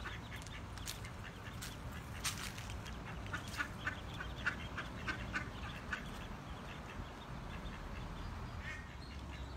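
Mallard hen and ducklings calling: a run of short calls, a few a second, thinning out after about six seconds, over a steady low background rumble.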